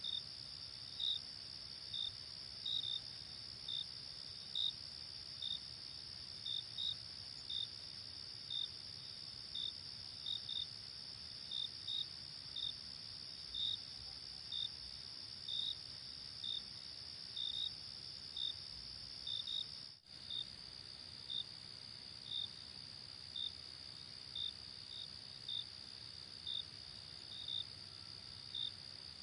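Insects chirping: a steady high-pitched trill with separate short chirps over it, roughly one a second and sometimes in pairs. A brief dropout about twenty seconds in.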